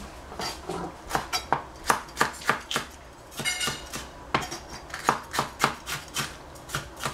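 Chef's knife slicing small capsicums on a plastic cutting board: a run of sharp knocks of the blade on the board, about two or three a second, with a short break about halfway.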